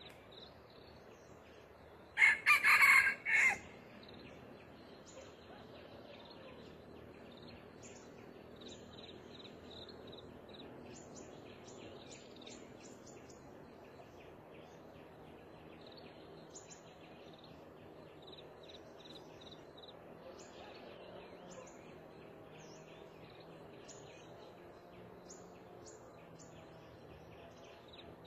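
Red junglefowl rooster crowing once, a short crow broken into a few pulses, about two seconds in. Faint high chirping of insects or small birds runs underneath.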